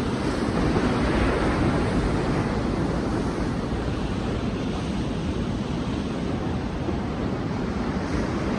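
Sea waves washing onto a beach: a steady rushing surf that swells slightly about a second in.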